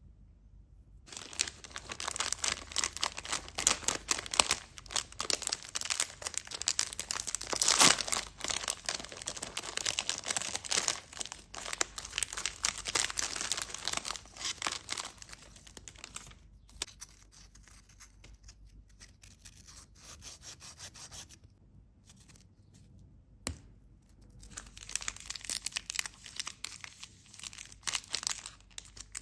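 Chocolate candy wrappers being torn open and crinkled in the hands, a dense, crackly rustle. It goes softer and sparser a little past the middle, with one sharp click, then picks up again near the end.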